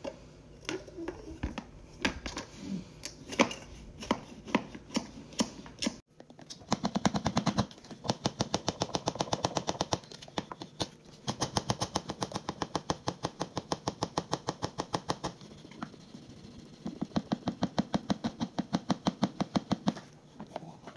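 Manual plunger milk frother being pumped rapidly through hot milk to make foam: a fast, even clatter of strokes, several a second, starting about six seconds in and stopping shortly before the end. A few scattered knocks and taps come before it.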